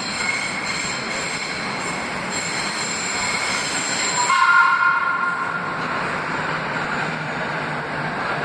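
Vintage IRT Lo-V subway train approaching through the tunnel, with steady rail noise and a high whine over it. About four seconds in, a short two-tone blast of its horn is the loudest moment.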